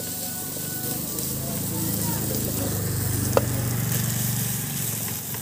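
Sliced onion, carrot and capsicum sizzling in butter in a steel pot while they are stirred with a wooden spatula, over a low steady hum. A single sharp tick about three and a half seconds in.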